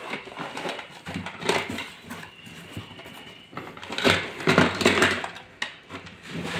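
Cardboard box flaps and plastic packaging rustling and scraping as a toy airplane is pulled out of its box by hand, in irregular bursts with small knocks, loudest about four to five seconds in.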